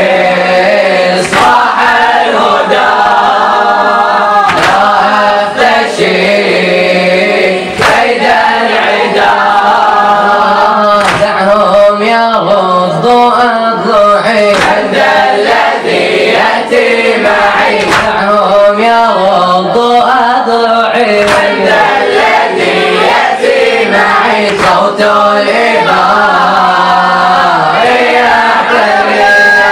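A group of boys chanting a Shia mourning lament (latmiyya) together, with regular chest-beating thumps about every one and a half seconds.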